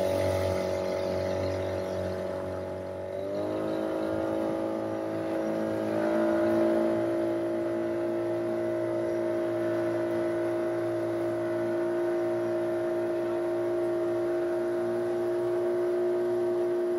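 A boat's motor runs under way, its pitch stepping up twice in the first several seconds as it is throttled up, then holding a steady drone. The hull's wake rushes along underneath.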